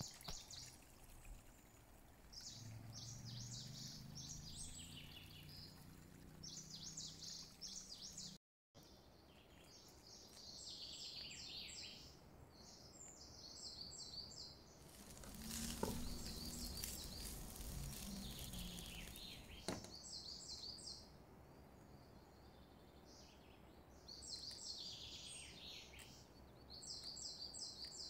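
Faint sizzling and crackling of oil in a frying pan as chickpeas, onion and garlic, then rice, are fried and stirred with a spatula. The crackles come in short clusters, with a couple of sharp knocks near the middle.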